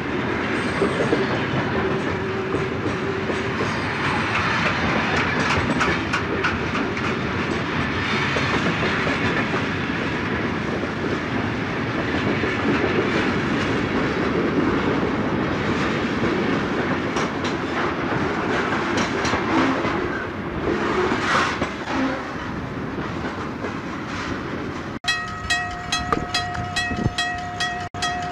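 Train running past on the rails: a steady rumble of wheels with clickety-clack. About 25 seconds in, the sound changes suddenly to a diesel locomotive horn sounding over rail clicks as a fast passenger train approaches.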